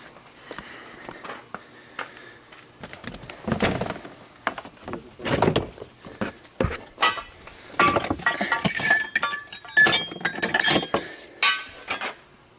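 Irregular clatter of knocks, clinks and scratchy scraping from hand work on a car bumper being trimmed to fit around a front-mount intercooler. The scraping and squeaks come thickest in the second half.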